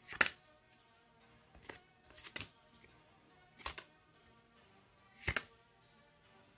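Bakugan trading cards slid one at a time off a hand-held stack, each a brief papery swish, about five in all, the first the loudest. Faint background music runs underneath.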